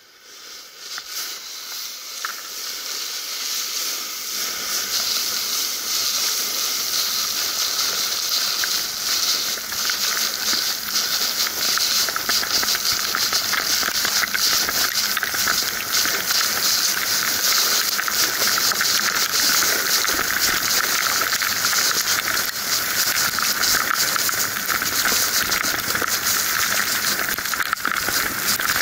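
Volcano board sliding down a slope of loose volcanic cinder: a steady gritty hiss that builds over the first few seconds and then holds, with constant crackling grain.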